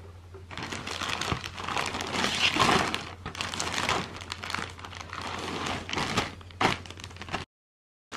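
Clear plastic bag full of cardboard jigsaw puzzle pieces crinkling and rustling in bursts as it is handled and opened. The sound cuts off abruptly shortly before the end.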